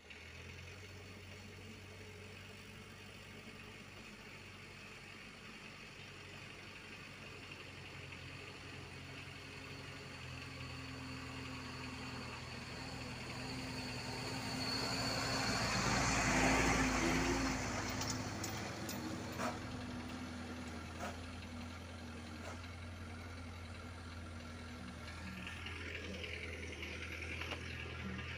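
Isuzu Elf light dump truck's diesel engine running, growing louder as the truck drives up close and passes about halfway through, then easing off.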